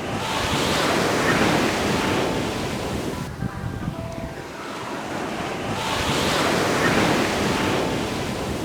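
Ocean surf breaking and washing onto a beach, swelling twice about six seconds apart with a quieter lull between.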